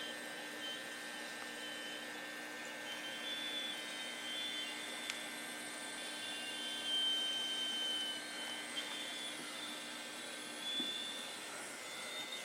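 Youngnam aquarium air blower running with a steady hum and a high-pitched whistle that comes and goes. The whistle is a fault sound that came on together with a loss of the blower's air output. The low hum drops out near the end.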